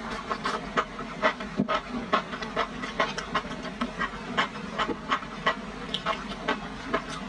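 Close-miked chewing of sauce-coated enoki mushrooms: a run of wet mouth clicks and smacks, a few each second.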